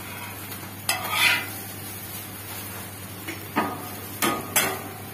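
Metal spatula scraping and striking on a flat steel dosa griddle: one scrape about a second in, then three short, sharp metallic clinks in the second half, over a steady low hum.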